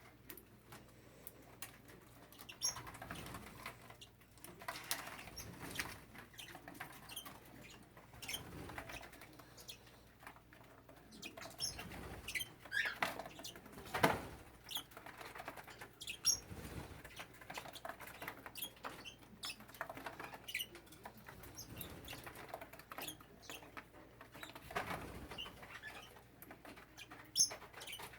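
Small grass parakeets moving about: wing flutters, rustling and scrabbling clicks, with scattered short high chirps.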